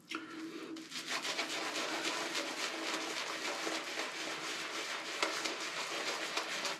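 Boti Sky City N3C 26mm synthetic shaving brush working shaving-soap lather, a steady wet bristly rubbing full of fine crackles.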